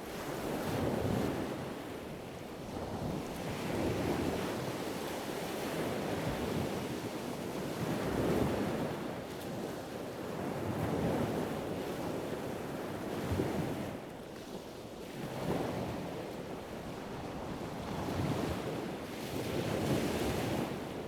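Ocean waves washing and surging, rising and falling every few seconds, with wind buffeting the microphone.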